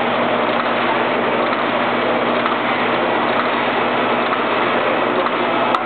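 Otto Hansel HTR chocolate bar wrapping machine running: a steady mechanical noise over a low, even hum, with one sharp click near the end.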